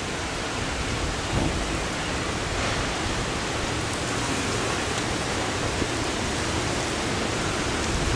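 Steady hiss of heavy rain with wind rumbling on the microphone, swelling in a gust about a second and a half in.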